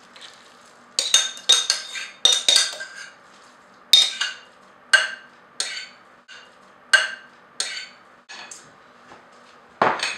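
A utensil scraping and knocking against a ceramic mixing bowl to get out the meatloaf mixture: about a dozen sharp clinks, each ringing briefly, with a louder knock near the end.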